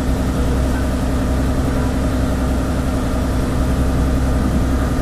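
A river ferry's engine running steadily with a low hum, with water rushing along the hull as the boat crosses through waves.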